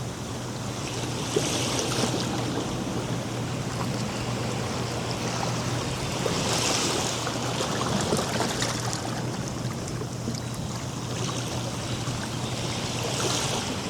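Ocean surf on a beach: a steady wash of breaking waves, with a louder hiss of foam swelling up about every six seconds.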